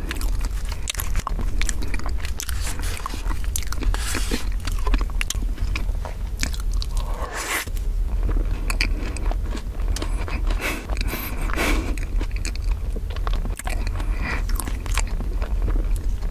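Close-miked wet chewing and mouth sounds of eating soft strawberry crepe cake and whipped cream, with many small clicks and smacks, and now and then a fork scraping cream off the wooden board.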